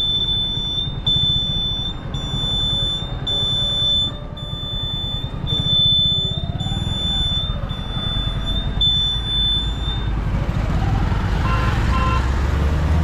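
A motorcycle's turn-indicator buzzer beeping about once a second as the bike turns, over the low rumble of the engine and wind on the microphone; the beeping stops about ten seconds in.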